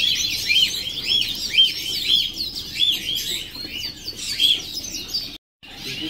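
Many caged songbirds chirping together: a steady chorus of short arched chirps, one bird repeating about twice a second over higher twittering. The sound drops out for a moment near the end.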